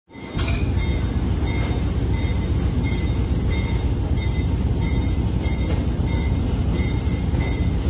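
Train running along the track: a steady low rumble with a light, regular clicking about one and a half times a second.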